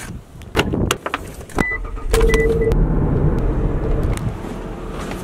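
Clicks and knocks of a door and keys, a few short high beeps from a car, then a car engine starting about two seconds in and running with a steady low rumble.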